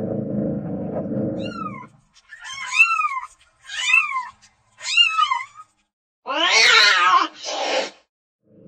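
A low, dense rumble for the first two seconds. Then a cat meowing: a faint falling call, three short rising-and-falling meows about a second apart, and a louder, harsher, drawn-out meow near the end followed by a shorter one.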